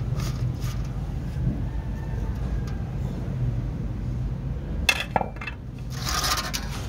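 Two sharp metallic clinks with a brief ring about five seconds in, from a metal pot lid being handled, followed by a short scrape as rice is put onto a metal tray. A steady low hum runs underneath.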